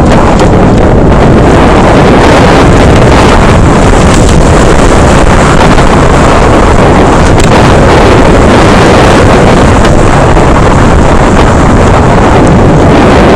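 Wind buffeting the microphone of a camera riding on a mountain bike going fast down a dirt and gravel downhill trail: a loud, steady rush of noise that never lets up.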